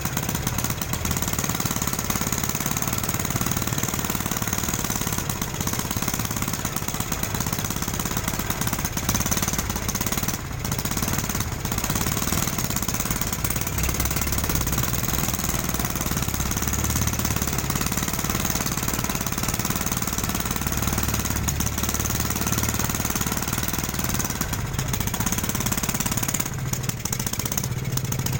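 A machine running with a rapid, steady rattle.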